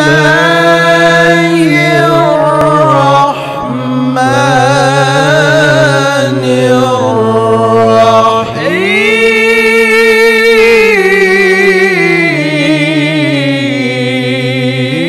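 A solo male voice chanting in the ornamented, long-held style of Quran recitation (tilawah), with wavering turns on sustained notes. Brief pauses between phrases fall about three and eight and a half seconds in.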